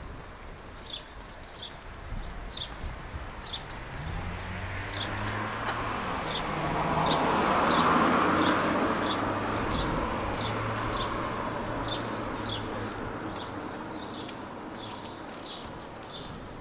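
A vehicle passing by, its engine and tyre noise building to a peak about halfway through and then fading. Under it runs a steady series of short, high falling chirps, about one and a half a second.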